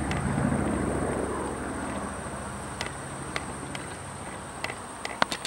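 Distant aircraft engine running, slowly fading away, over a steady high insect buzz.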